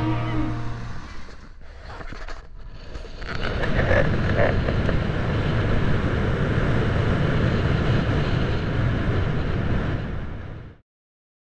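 Music fading out, then a steady rumbling noise, strongest low down, that cuts off suddenly near the end.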